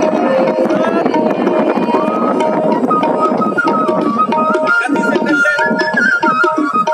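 Background music: tabla drumming under a melody of long held notes, with no singing.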